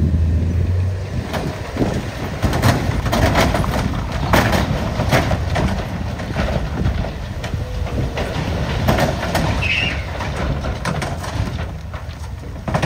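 Dump truck tipping a load of broken rock and dirt: rocks clatter and knock irregularly as they slide out over the tailgate, over a low engine rumble that is strongest in the first second.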